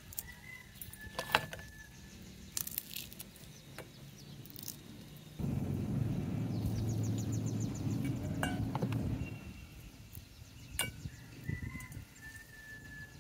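Scattered snaps and crackles as dried smoked fish is broken apart by hand. A low rumble starts suddenly about five seconds in and dies away about four seconds later. Faint bird chirps can be heard now and then.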